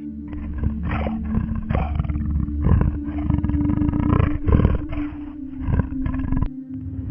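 Lion roaring: a run of rough, grunting roars in quick succession that stops abruptly near the end.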